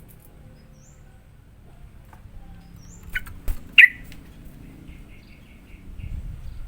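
Yellow-vented bulbul (trucukan) calling: a few faint high chirps, then two loud sharp notes about three seconds in, the second falling in pitch, followed by a quick run of short repeated notes.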